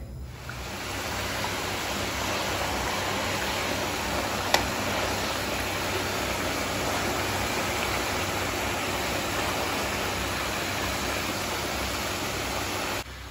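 Battered chicken pieces deep-frying in hot oil in an open frying pan: a steady sizzle that builds up in the first second and then holds level. One sharp click about four and a half seconds in.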